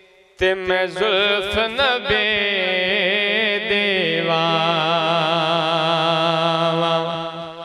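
A man's voice singing a naat without words: an ornamented run of quickly wavering notes, then from about four seconds in one long held note that fades near the end.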